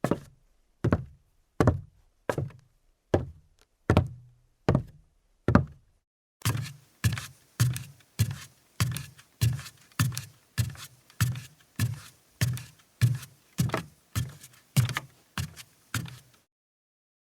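Footsteps on a wooden floor. Slow, even steps come first; after a short pause about six seconds in, quicker steps follow with a faint hiss behind them. The steps stop near the end.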